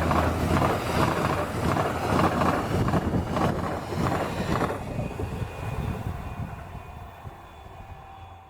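Rumbling vehicle noise that grows steadily fainter over the second half.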